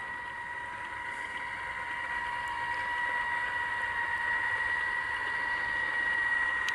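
Robot Trolley RT-1500, a battery-powered tracked trailer mover, driving under a trailer's drawbar over grass: its electric drive motors and gearing give a steady high whine that grows a little louder.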